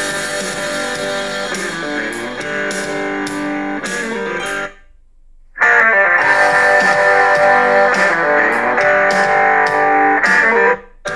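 Rock song with strummed electric guitar played through a tablet's built-in speakers. It cuts out about four and a half seconds in and comes back louder about a second later, then breaks off again briefly near the end, as playback switches between the two tablets under test.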